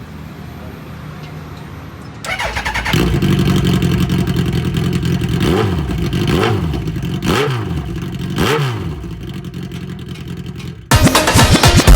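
Suzuki Hayabusa's inline-four engine running through an aftermarket exhaust. It comes in about two seconds in and idles loudly, then is revved four times in quick blips, each rising and falling in pitch.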